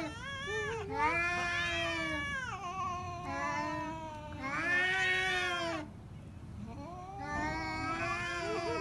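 Domestic cats in a face-off, yowling at each other: a run of long, drawn-out wavering howls one after another, sometimes overlapping, easing off briefly about six seconds in before rising again.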